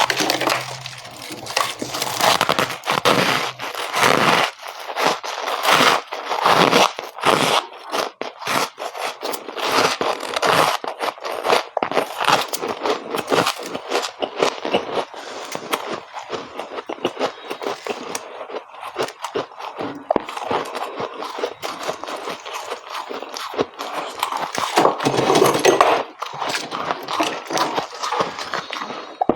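Close-miked crunching of freezer frost being bitten and chewed, a dense run of sharp crackling crunches with short pauses between bites.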